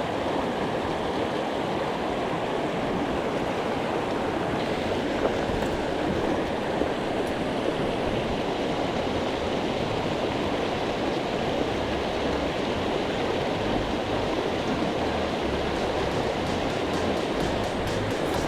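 Clear mountain stream flowing: a steady, even rush of water.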